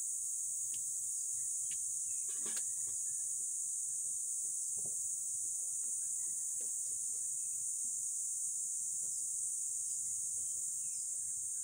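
A steady, high-pitched chorus of insects such as crickets or cicadas, with a few faint clicks scattered through it.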